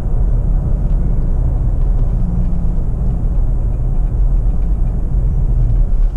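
Steady low rumble of a vehicle driving along a dirt road, with engine and tyre noise heard from inside the cab.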